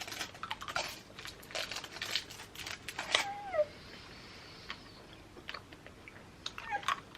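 A run of small crackling clicks for the first few seconds, then a baby's short whiny cry that slides in pitch about three seconds in, with another brief one near the end.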